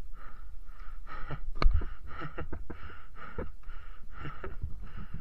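Dirt-bike rider panting hard from exertion on a steep climb, about two breaths a second, over a steady low rumble. A sharp knock about a second and a half in is the loudest sound.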